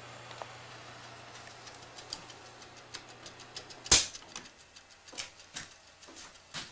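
A spring-wound wall timer switch ticking faintly. About four seconds in comes a sharp switch click, and the electric heater's steady low hum stops. A few lighter switch clicks follow.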